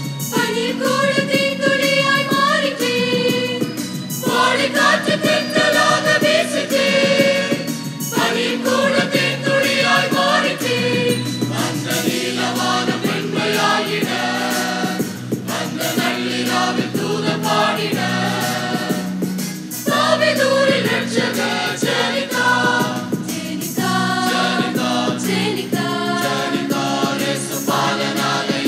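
Mixed church choir of women and men singing a Tamil Christmas carol in held, sustained notes.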